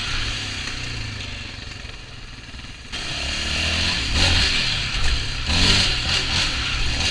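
Yamaha Raptor 700R's single-cylinder engine heard from the rider's seat, easing off for the first few seconds, then opened up hard about three seconds in and surging up and down as the throttle is worked.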